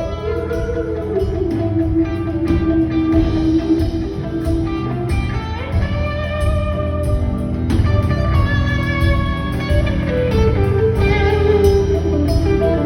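Instrumental stretch of a country song: a guitar playing long, held lead notes that bend and slide between pitches over a steady backing.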